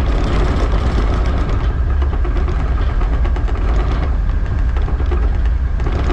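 Tugboat's diesel engine running steadily with a deep, low hum.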